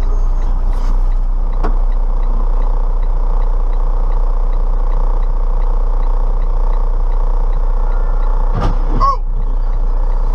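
Steady traffic and engine noise picked up by a dash cam. About nine seconds in, a light rail train hits a car: a sharp crash followed by a brief falling squeal.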